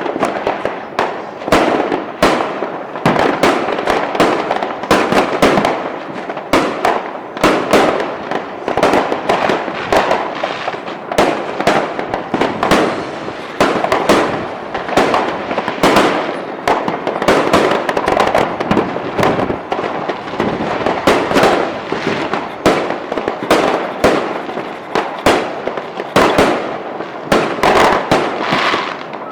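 Fireworks going off in a dense, continuous barrage: many sharp bangs and crackles overlapping with no gap.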